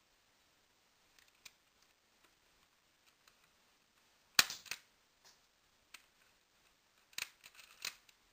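Sharp plastic clicks and snaps from a Lego replica shotgun's mechanism being worked: faint ticks at first, one loud snap about halfway through, then a quick run of clicks near the end.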